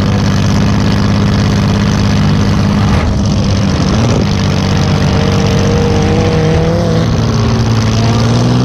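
2005 Chrysler Town and Country minivan's V6 engine running loud, heard from inside the stripped-out cabin. It revs up around four seconds in, with a sharp knock just before, then runs on steadily.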